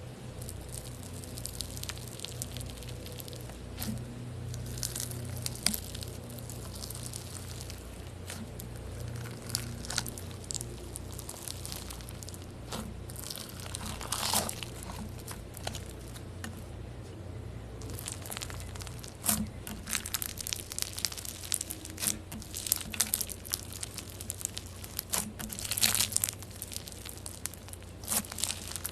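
Slime being squeezed and pressed by hand, giving irregular crackling, crunching clicks that come thicker in the second half, over a steady low hum.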